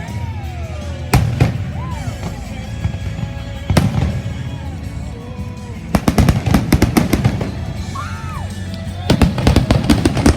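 Fireworks display: a loud single bang about a second in and another a few seconds later, then two runs of rapid crackling bangs, one about six seconds in and one near the end.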